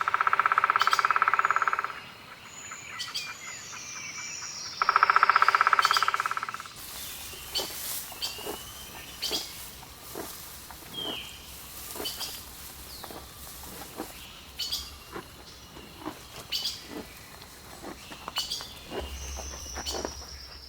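Animal calls: two loud rattling trills of about two seconds each, the second starting about five seconds in, then scattered short chirps, clicks and a few high gliding calls.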